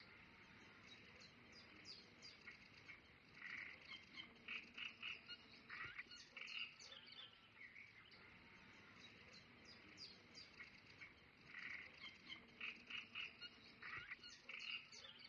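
Faint monkey ambience: many short, high calls and chirps over a steady background hiss. The same stretch plays again about halfway through, as a loop.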